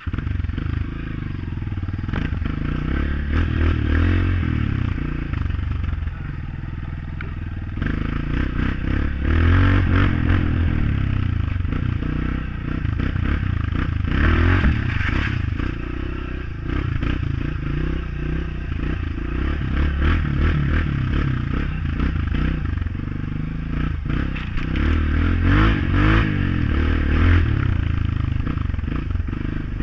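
Honda CRF dirt bike engine running with the throttle rising and falling as the bike is ridden along a rough forest road. Frequent clattering and knocks are heard over it.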